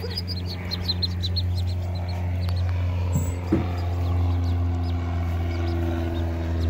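Mallard ducklings peeping: a quick run of short high chirps that thins out about halfway through, over a steady low mechanical hum.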